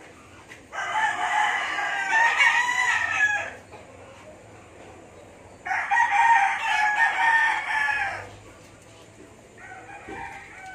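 Rooster crowing twice, each crow about three seconds long, with a fainter call starting near the end.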